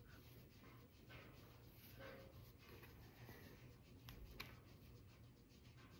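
Faint rustling of a thin waffle-knit top being unfolded and handled, with a soft click about four seconds in.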